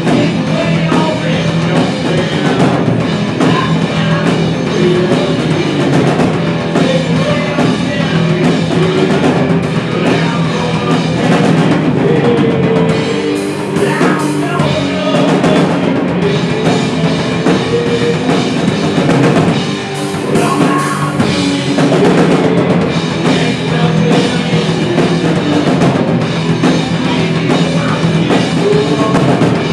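Live rock band playing loudly: drum kit, distorted electric guitar and a singer's vocals through the PA.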